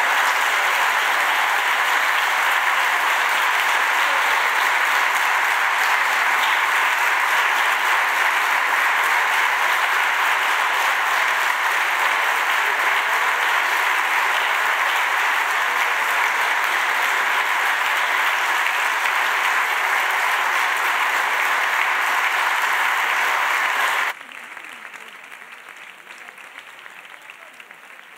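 Applause from a large crowd of senators in a parliamentary chamber, many of them on their feet, clapping steadily for more than twenty seconds. It drops off suddenly about four seconds before the end, leaving only faint background noise.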